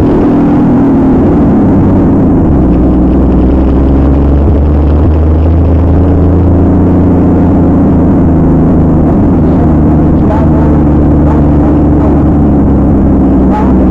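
Truck engine running loud, its pitch falling over the first couple of seconds and then holding fairly steady with a heavy low rumble.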